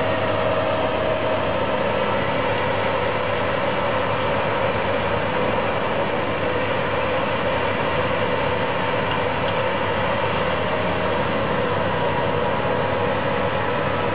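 Machinery running steadily: an even, continuous noise with a few steady hum tones through it.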